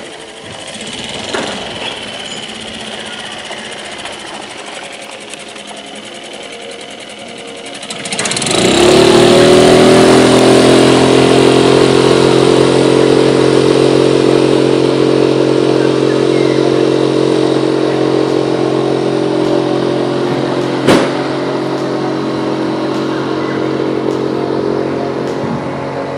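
Small Suzuki outboard motor on an inflatable catamaran, running slowly, then opened up hard about eight seconds in. Its pitch climbs quickly and settles into a steady full-throttle drone with water rushing under the hull. One sharp click comes about three-quarters of the way through.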